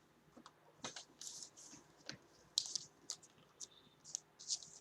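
Faint rustling and a few sharp clicks from trading cards and their packaging being handled.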